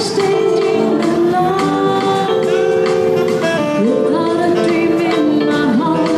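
Live band music: a woman singing with saxophone and keyboard accompaniment, the notes held and sliding between pitches.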